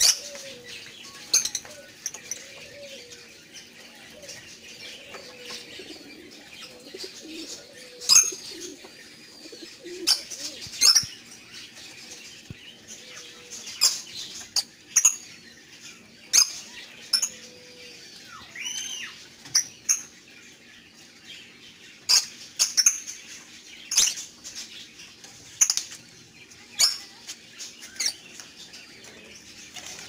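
Flock of caged lovebirds calling: short, sharp, shrill chirps coming every second or two at irregular intervals. Softer, lower warbling calls run underneath through the first half.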